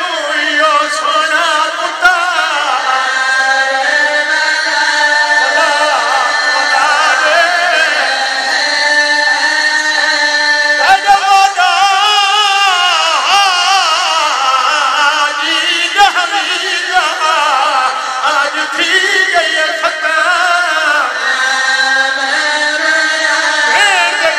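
A man singing a mournful majlis lament in long, drawn-out phrases, his voice wavering on held notes.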